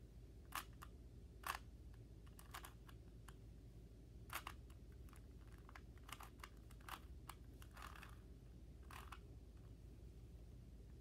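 Rubik's Cube being turned by hand: irregular plastic clicks and clacks as the faces rotate, about a dozen, the sharpest about a second and a half in and again a little past four seconds.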